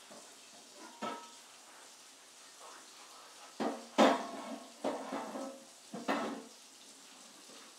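Ceramic bowl knocking and clinking on a plastic high-chair tray as a toddler's fingers dig into spaghetti: five or so short knocks, the loudest about four seconds in.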